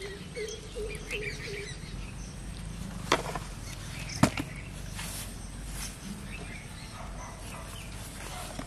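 Two sharp knocks about a second apart as a live snakehead fish goes into a plastic basin and thumps against the plastic.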